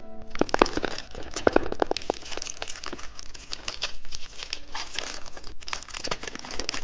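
Candy wrapper crinkling and tearing as a package is opened by hand, with many small irregular crackles.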